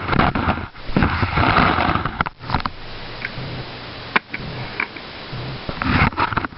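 A person with a cold sniffing and breathing close to the microphone, in noisy bursts, the longest about a second in and another near the end, with a few sharp clicks.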